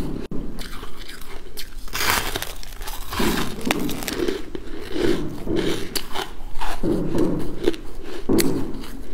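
A person biting into and chewing a block of crunchy purple frozen ice, with crisp crunches and cracks coming about once a second.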